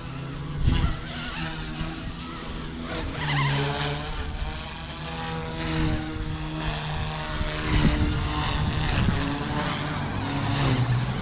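Blade 150S micro electric RC helicopter in flight: a steady high-pitched motor and rotor whine that wavers slightly in pitch as the head speed and load change, over a lower rotor buzz. Wind noise rumbles on the microphone.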